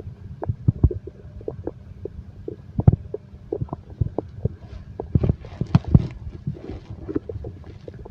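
Stomach growling: irregular gurgles and short pops over a low rumble, busiest about five seconds in.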